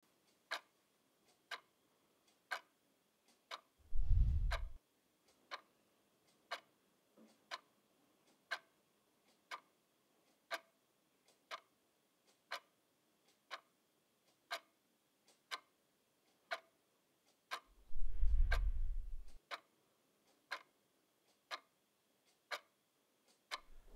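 A clock ticking steadily, about once a second, with two deep low booms, a short one about four seconds in and a longer one past the middle.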